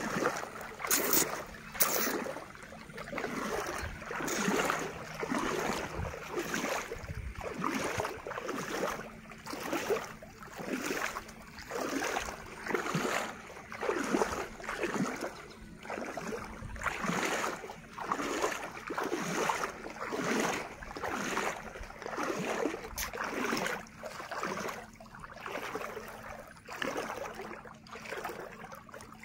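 Floodwater swishing and splashing in a steady rhythm, about once a second, as it is pushed aside by someone moving through it.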